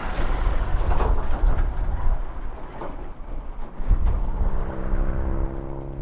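Wind buffeting the microphone, with dry grass rustling as hands work in it. About four seconds in, a steady engine hum with several even tones sets in.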